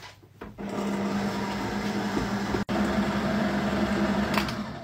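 Electric stand mixer running a short mix of thick blondie batter: a steady motor hum with the flat beater turning in the steel bowl. It starts about half a second in and stops just before the end.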